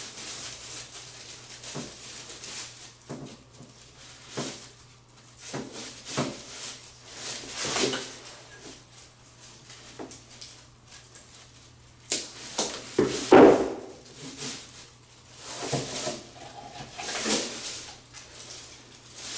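Irregular rustles, clicks and scrapes from handling electrical wire, a wire-working hand tool and a recessed-light housing, loudest about 13 seconds in, over a faint steady low hum.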